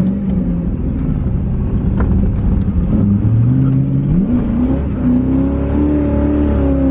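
Ford Mustang GT V8 engine pulling under acceleration. It runs low and steady at first, then climbs smoothly in pitch about three seconds in and holds at the higher revs.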